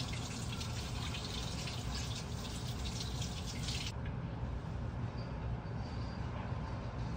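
Water running from a tap in a steady splashing hiss, which stops abruptly about four seconds in. A steady low rumble continues underneath throughout.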